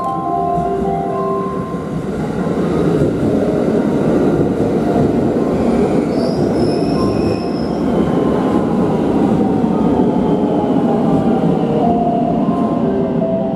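IR Ishikawa Railway 521-series electric multiple unit running past at speed: a steady rumble of wheels and running gear, a brief high squeal a little past halfway, and a falling whine as it draws away. Marimba music fades out at the start and back in near the end.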